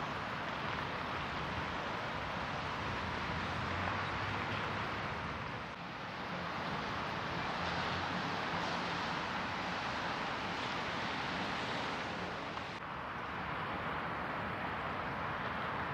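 Train running past: a steady rushing noise with a faint low hum, dipping briefly twice.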